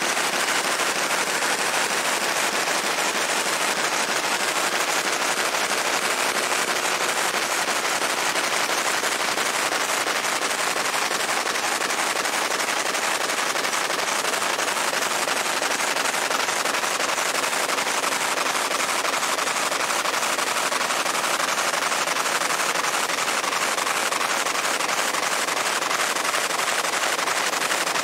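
Fiber laser engraving a Glock 19 pistol slide: a steady, dense crackle of rapid tiny snaps as the pulsed beam marks the metal.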